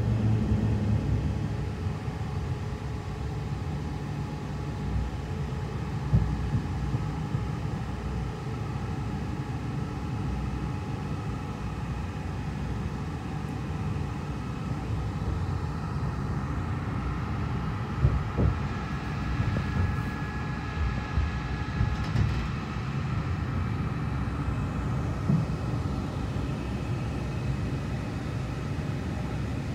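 Tram running, heard from inside the car: a steady low rumble of the wheels on the rails, with faint steady whining tones above it and a few sharp knocks, about six seconds in and twice more past the middle.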